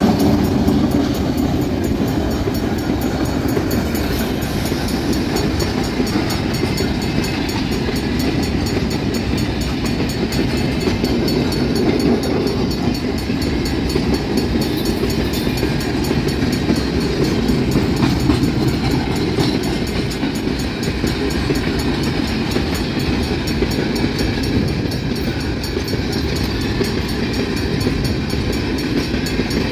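An EMD GT-22CW diesel locomotive passes close at speed at the start, followed by a long string of empty tank cars rolling by, with a steady, loud rumble of wheels on the rails.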